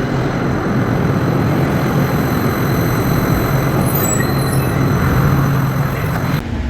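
A PATH rapid-transit train running, with a steady rumble and several steady high whining tones. The noise drops suddenly near the end.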